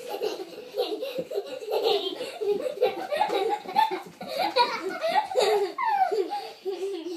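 Young children laughing almost without pause as they spin each other around, their high voices rising and falling.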